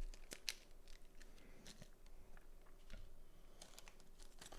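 Faint, scattered small clicks and handling noises of plastic keyboard stabilizers (TX stabs) being fitted to a keyboard PCB.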